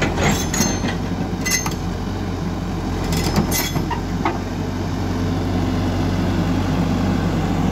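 Schwing Stetter XE140i crawler excavator's engine running steadily under load while its steel tracks clank several times in the first few seconds as it crawls up onto a trailer.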